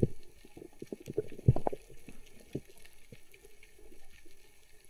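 A diver's grunts heard underwater as a few short, low thumps at uneven intervals, the loudest about a second and a half in; the grunting is a lure to draw a curious uku in.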